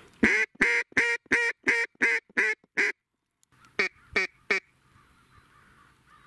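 Duck call blown as a mallard hen's quacks: a run of eight loud, evenly spaced quacks, then after a short break three softer quacks.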